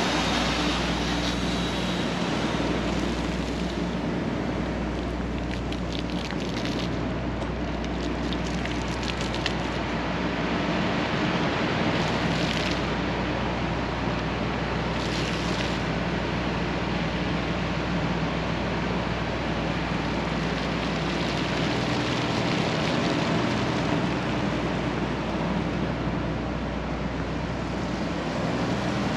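Steady city street noise with traffic, with a patter of small clicks and two brief hissing bursts partway through.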